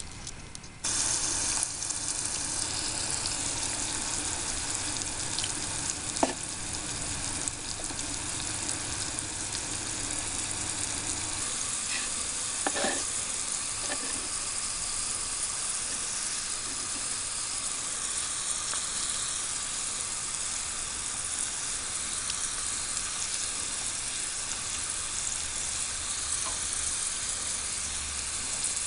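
Miniature french fries deep-frying in a tiny pot of hot oil: a steady sizzle that starts about a second in, with a few sharp clicks along the way.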